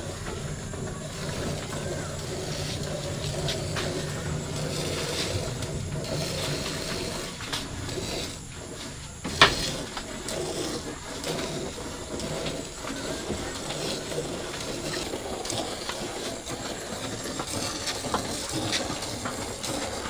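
Streams of milk squirting from a cow's teats into a part-filled aluminium bucket of frothy milk during hand milking, a steady hiss. A single sharp knock about nine seconds in.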